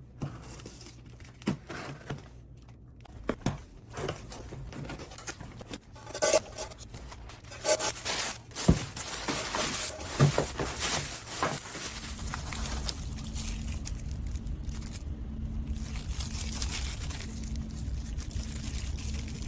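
Packing tape being cut and a cardboard box opened, with scrapes and knocks, then a plastic bag rustling and crinkling as bagged toys are pulled out. About twelve seconds in a steady low hum starts beneath lighter crinkling of sealed plastic toy packets.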